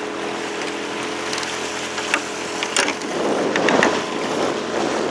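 Honda four-stroke outboard motor running steadily, driving a motorboat along, with a few short knocks near the middle.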